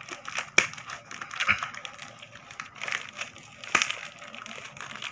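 Clear plastic toy packaging crinkling and rustling as it is pressed and handled, with three louder crackles: about half a second in, around a second and a half, and near the end.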